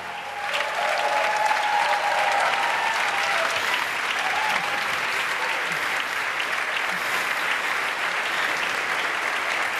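A large theatre audience applauding as the dance music ends, with a few voices calling out over the clapping in the first two seconds.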